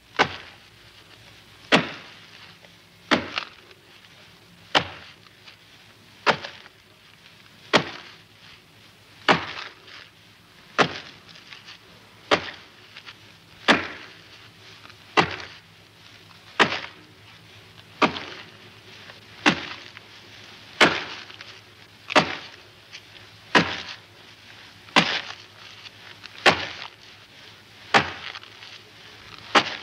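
Steady rhythm of sharp work thuds, one about every second and a half, some with a lighter second knock just after, matched to salt workers labouring in unison on heaped salt.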